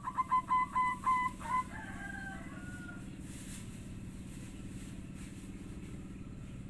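Female zebra dove (perkutut) calling: a quick run of short cooing notes, then longer notes falling in pitch. A steady low hum runs underneath.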